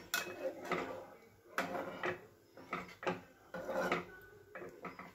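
A flat spatula scraping and stirring through curry gravy in a non-stick kadai, in about eight short strokes at uneven spacing.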